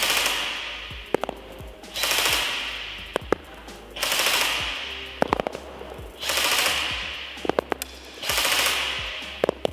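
Apex Fast Attack 802 airsoft electric gun (AEG) firing five short full-auto bursts about two seconds apart, each echoing and fading in a large hall. About a second after each burst come a couple of sharp clicks from the BBs striking the target.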